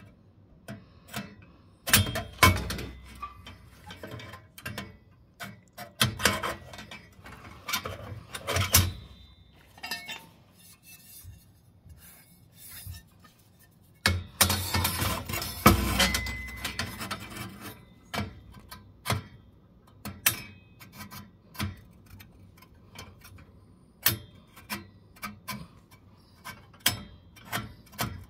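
Metal gas burner tubes being handled in a boiler's burner tray: scattered clicks, knocks and scraping, with louder scraping about two seconds in and again around the middle.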